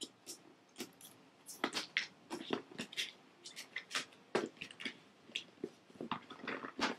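Hands handling and working at opening a cardboard product box: irregular scrapes, taps and rustles of card, many short sounds one after another.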